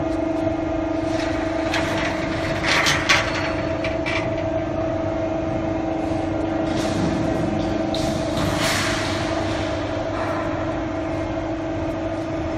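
QC12K hydraulic swing-beam shearing machine running, its hydraulic pump and motor giving a steady hum. Short noisy bursts come about two to three seconds in, the loudest near three seconds, and again around nine seconds, as the shear works through its stroke.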